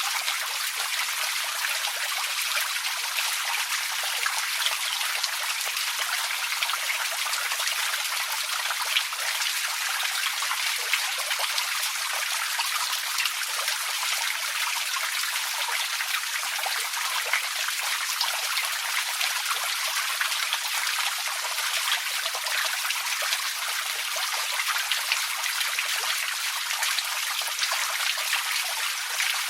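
Small forest creek trickling and splashing steadily over stones, a continuous bright babble.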